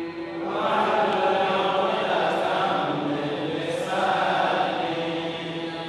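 A man chanting a Quran recitation in Arabic: long, melodic held notes that rise and fall, swelling about half a second in.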